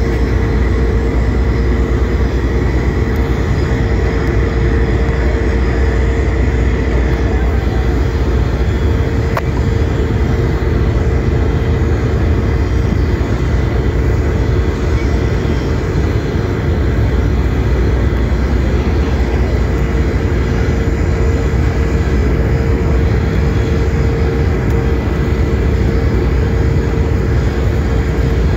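Excursion ship's engine running steadily under way, a constant deep rumble with a steady hum.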